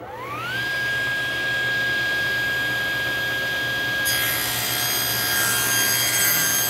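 Table saw switched on, its motor and blade spinning up in a rising whine over the first half second, then running steadily. About four seconds in, a board is fed along the fence into the full-kerf blade, and the rip cut adds a harsh hiss of sawing over the whine.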